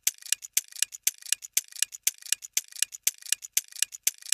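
Clock-ticking sound effect used as a quiz countdown timer: sharp, regular ticks at about four a second.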